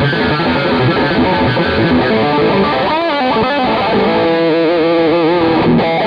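Sqoe SEPRS 900 electric guitar on its bridge humbucker through distortion: a fast run of picked notes, then from about four seconds in, held notes with wide vibrato.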